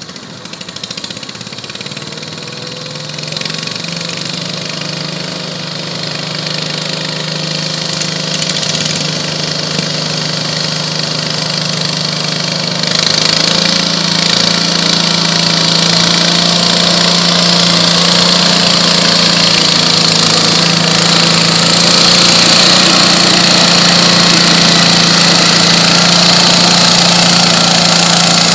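Modified garden pulling tractor engine running, getting steadily louder over the first dozen seconds, then jumping in loudness at about 13 s to a steady full-throttle run as the tractor drags a weight-transfer sled down the track.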